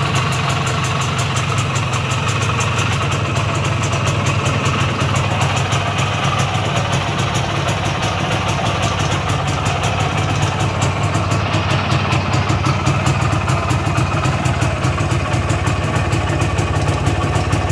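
IZH Planeta 3's single-cylinder two-stroke engine running steadily at idle.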